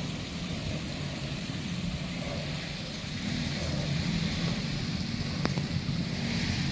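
Steady outdoor background noise with a low rumble; a faint short tick about five and a half seconds in.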